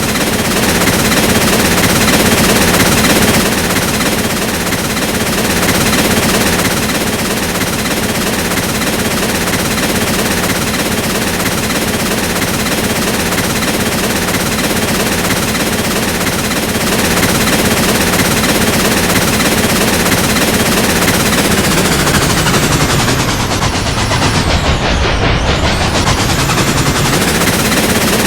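Train running with a loud, steady, rapid rattling clatter. Near the end the high hiss briefly dips away while the low rumble grows stronger, then comes back.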